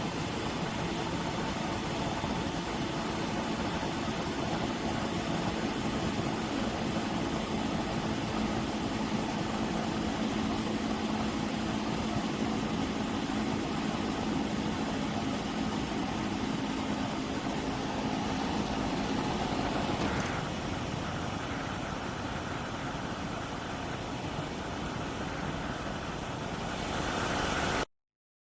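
Portable spot air conditioner running: a steady fan rush with a machine hum under it. About two-thirds of the way through, the hum drops out and a slightly quieter rush of air continues, then the sound cuts off abruptly.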